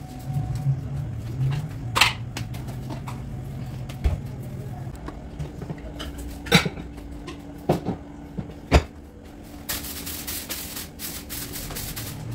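Household cleaning noises: a few sharp knocks and clatters as things are handled, then from about ten seconds in a steady scratchy rubbing in quick repeated strokes.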